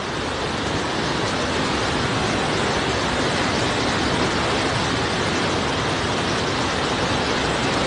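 Steady, unbroken rushing of water in a heavy rainstorm, an even noise with no let-up.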